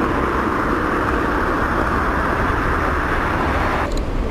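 Steady street traffic noise, a continuous rushing hiss over a low rumble, that cuts off abruptly near the end.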